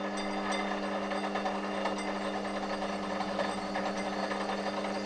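An 1100 W lathe running steadily at about 1000 rpm: a constant motor hum with a light mechanical rattle, its speed holding steady.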